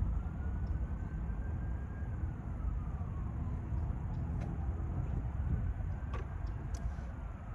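Wind rumbling on the microphone, with a faint distant siren wailing in one slow rise and fall of pitch, and a few light clicks in the second half.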